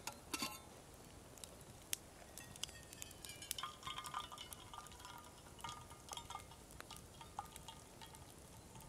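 Hot water poured in a thin stream from a kettle into a drip coffee bag sitting on a steel camping mug, trickling and splashing with a light ringing tone. A few light clicks near the start.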